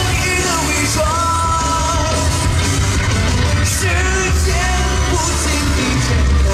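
A pop song with a singer, playing loudly over a heavy bass beat.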